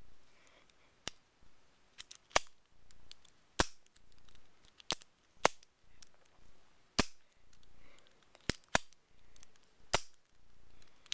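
Vintage Best padlock being worked with its third operating key: about ten sharp metallic clicks, roughly one every second, as the lock is opened and snapped shut, with soft handling noise between the clicks.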